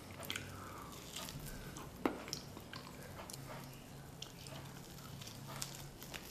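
A man eating bread by hand: quiet chewing and small mouth and lip sounds, with one sharp click about two seconds in.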